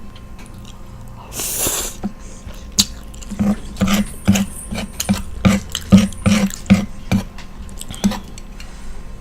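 A person chewing food: a noisy bite or slurp about a second and a half in, then a run of wet chewing clicks about two and a half a second from about three seconds to seven.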